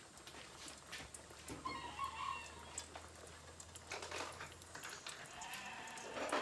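Sheep bleating: one wavering call about two seconds in and a fainter one near the end, with a few light knocks in between.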